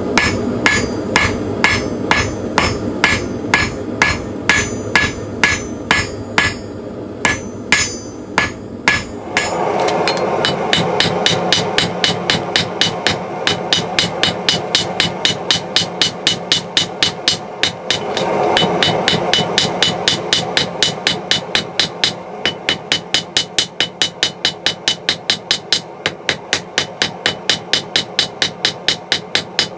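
Rounding hammer striking hot steel on an anvil while forging a firesteel striker: a steady run of ringing blows, about two to three a second at first, then faster, about four a second, from about ten seconds in. A steady rushing noise comes and goes underneath the blows.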